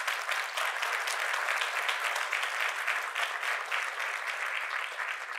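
Audience applauding: a dense patter of many hands clapping, beginning to thin out near the end.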